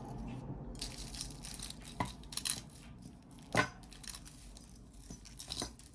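Costume jewelry being handled: a few light clicks and clinks as small metal and bead pieces knock together or are set down, the loudest about three and a half seconds in, with soft rustling between.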